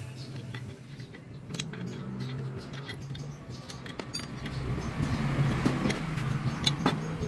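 Short metal clicks and clinks of a wrench on a scooter's rear axle nut as the aluminium rear swing-arm bracket is worked loose and lifted off. Under them runs a low steady engine hum.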